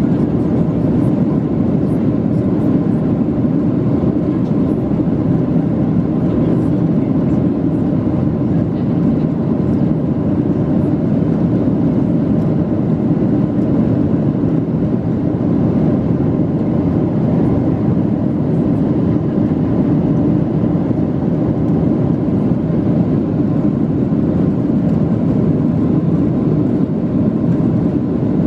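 Steady, loud roar of a Boeing 747-436's Rolls-Royce RB211 jet engines and airflow, heard inside the passenger cabin with the aircraft in flight, with a faint steady whine over it.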